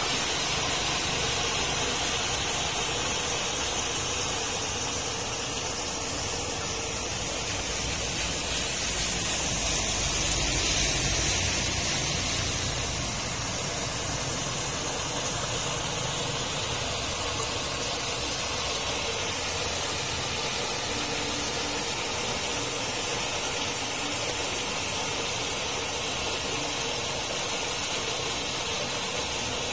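Muddy rainwater gushing steadily through a steel-rod grate into a road culvert, with rain falling on the water; the rush swells a little about ten seconds in.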